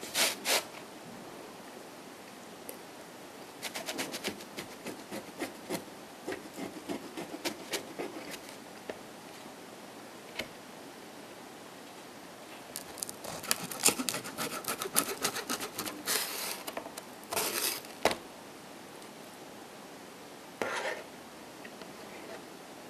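A person chewing a bite of salami pizza up close: runs of small clicking, crackling mouth noises in two stretches, with a few short, louder bursts of noise in between.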